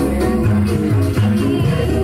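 Loud music with a steady, rhythmic bass line, played through miniature sound-system speaker stacks.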